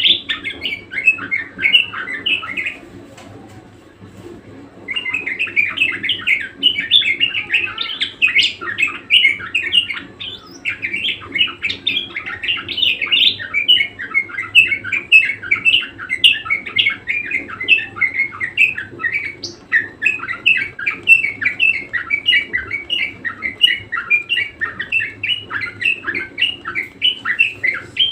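Budgerigar warbling: a fast, continuous chatter of chirps and squeaks. It breaks off about three seconds in and resumes two seconds later.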